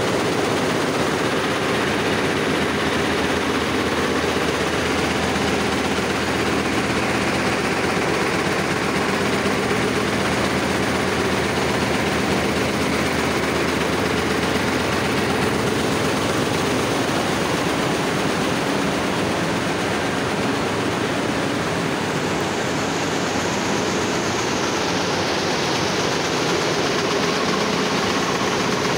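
Cotton comber machines running: a loud, steady mechanical din that does not change.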